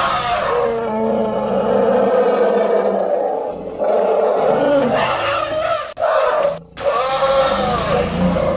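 Elephant calls: a run of pitched, wavering roaring cries in several separate takes, cut off abruptly between them.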